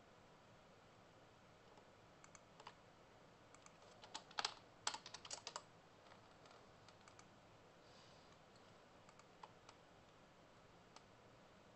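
Computer keyboard typing: scattered faint keystrokes, with a quick run of louder key presses in the middle.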